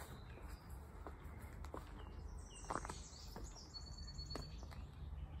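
Faint birdsong outdoors: small birds chirping and twittering, most clearly in the middle, over a low background rumble, with a few soft clicks.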